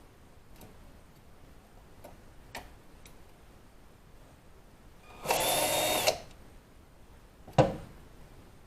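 A power drill runs in one short burst of under a second while drilling out a broken-off bolt, followed about two seconds later by a single sharp knock. A few faint clicks come before it.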